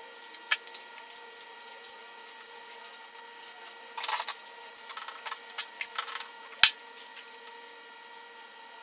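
Scattered clicks and light clattering of engine parts and hand tools being handled, with one sharp click about two-thirds of the way through. A faint steady hum sits underneath.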